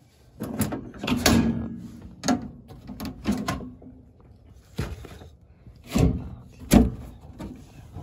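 A run of irregular knocks and clatters, about a dozen, from the sheet-metal access panels of an HVAC air handler being taken off and set down. The two loudest knocks come about three-quarters of the way through.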